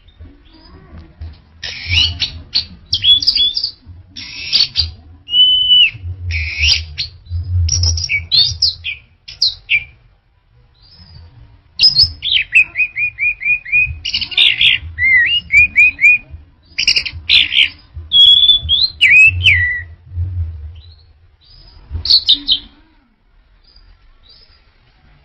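Orange-headed thrush singing a loud, varied song of whistled phrases, sweeps and rapid runs of repeated notes, in two long bouts with a short pause between them.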